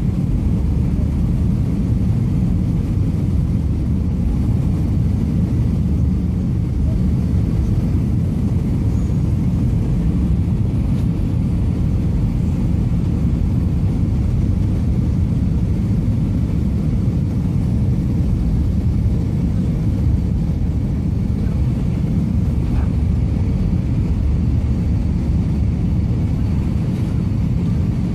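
Steady low rumble of an airliner's jet engines and the rush of air over the fuselage, heard inside the cabin at a window seat as the plane descends. It holds even throughout, with no changes in pitch or level.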